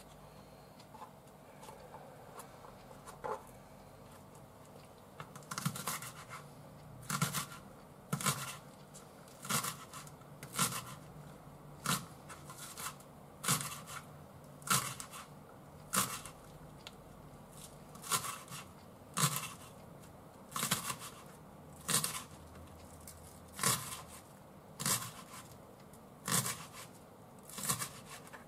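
Kitchen knife slicing a Japanese green onion (negi) into rounds on a cutting board, each cut a short crisp crunch through the stalk ending on the board. The cuts come in a steady rhythm of a little more than one a second from about six seconds in, after a few faint taps.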